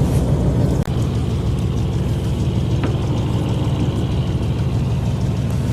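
A fishing boat's engine running steadily, a continuous low rumbling hum, with a brief dip in level about a second in.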